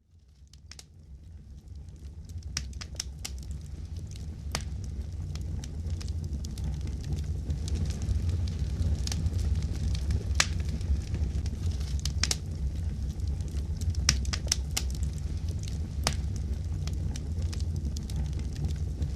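Fire crackling: a steady low rumble of flames with irregular sharp pops and snaps, fading in from silence over the first few seconds.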